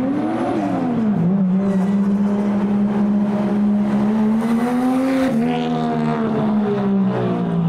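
Toyota Mark II's straight-six engine pulling away: a quick blip of revs, then a steady climb in one gear, a drop in pitch at a gear change about five seconds in, and a steady pull again.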